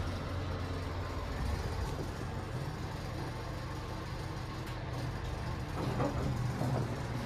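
A 1992 Mitsubishi Elepet Advance V passenger elevator running, heard as a steady low hum inside the car. Near the end its doors slide open with a few faint knocks.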